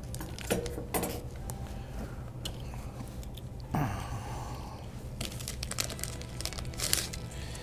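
Clear plastic bag crinkling and rustling as it is handled and opened around a micrometer, with scattered small clicks and taps and a longer, louder rustle about four seconds in.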